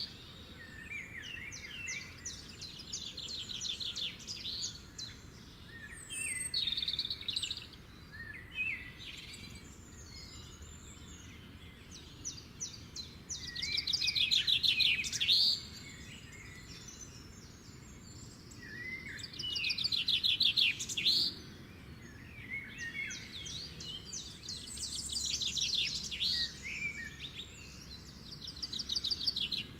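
Songbirds singing: repeated phrases of rapid, high trills and chirps, with short pauses between them and the loudest phrases around the middle, over faint outdoor background noise.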